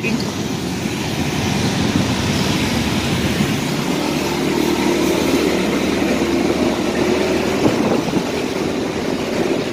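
Motorcycle ridden through city traffic, heard from the pillion seat, with wind rushing over the microphone. A steady engine hum comes in under the rush about four seconds in.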